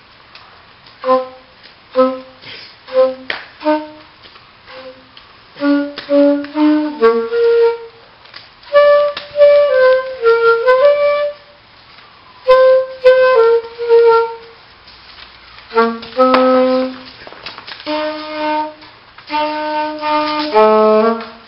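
A tune played in short notes on a flute-like woodwind sound, in phrases with brief pauses and some clicks between them.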